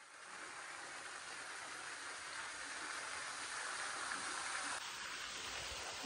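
Steady rush of flowing water: a stream running over rocks, with a waterfall falling nearby.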